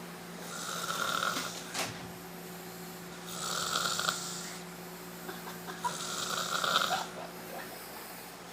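A man snoring in his sleep: three snores, each about a second long, coming about two and a half seconds apart with each breath.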